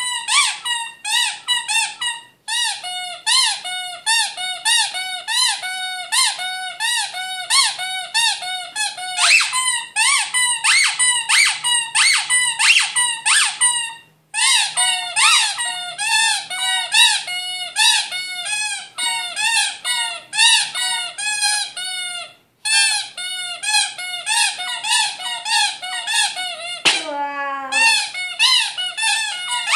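Yellow squeaky toys squeezed rapidly in both hands: a quick, unbroken string of short squeaks, each rising and falling in pitch, with a few brief pauses. Near the end one longer squeak slides down steeply in pitch.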